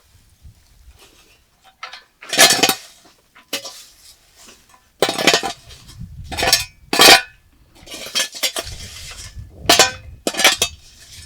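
Dishes and metal utensils clattering and clinking in several separate bursts, as kitchenware is handled during cooking.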